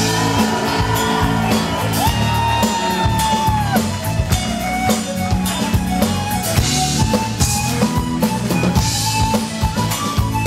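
Live band playing an upbeat song with a steady drum-kit beat; a long held note sounds over it for the first few seconds.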